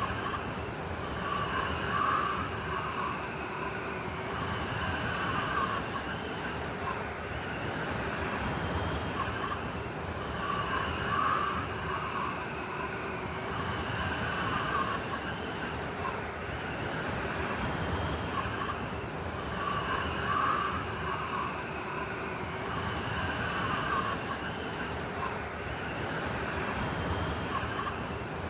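Blizzard wind blowing steadily, with a higher whistling tone that swells about every nine seconds.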